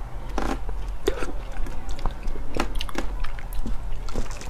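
Close-up mouth sounds of a person eating soft, fibrous jackfruit flesh: wet smacks and small clicks of chewing at irregular intervals, over a steady low hum.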